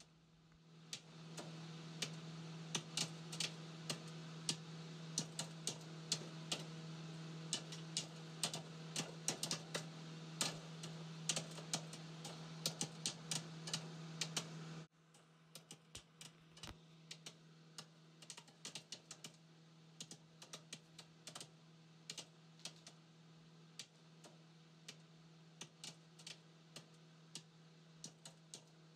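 Irregular light clicks and taps over a steady low hum, all becoming quieter about fifteen seconds in.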